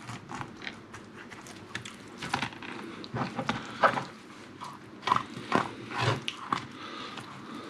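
Sea bass being filleted: a serrated knife cuts along the backbone and fingers pull the raw fillet off the bones, making irregular wet clicks, crunches and squelches on a plastic chopping board.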